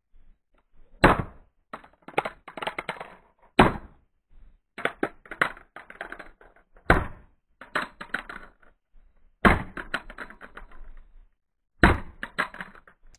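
A chunk of car door pounds a small plastic MP4 player against concrete in five hard blows about every two and a half seconds. Each blow is followed by a rattling clatter as the player skids and bounces. By the last blows the player's casing is cracking apart and its front faceplate is coming off.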